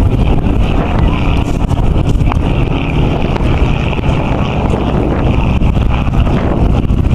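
Boeing-Stearman Model 75 biplane's radial engine droning steadily in flight, with wind rumbling on the microphone.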